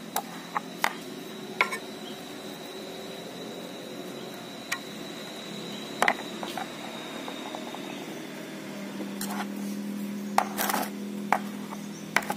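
Sharp, irregular metal clicks and taps of a scraper picking hardened carbon deposits out of a diesel engine's intake manifold ports, over a steady low hum.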